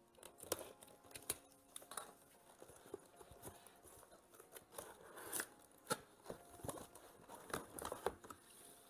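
Cardboard shipping box being opened by hand: flaps and packaging rustling, scraping and tearing in a string of irregular sharp crackles.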